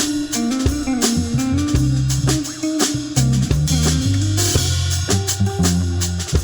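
Live band instrumental passage in a bachata-inspired R&B song: a gliding guitar melody over bass guitar notes and a drum kit keeping a steady beat.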